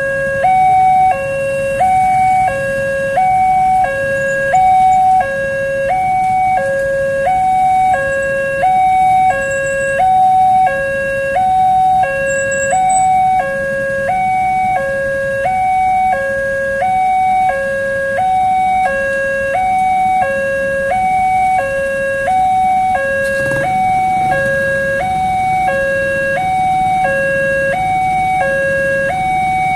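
Level-crossing electronic warning siren, alternating steadily between a high and a low tone about once a second, sounding while the barrier is down to warn that a train is approaching.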